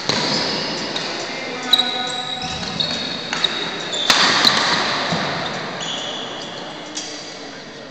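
Badminton rally on a wooden court: rackets striking the shuttlecock with sharp cracks, the loudest a smash about four seconds in, and shoes squeaking on the floor, echoing in a large hall.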